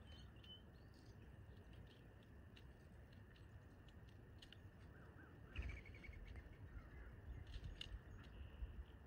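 Faint outdoor ambience at a bird feeder: a low steady rumble with a few soft bird chirps. About five and a half seconds in there is a brief thump with a short burst of chirps, followed by a few light ticks.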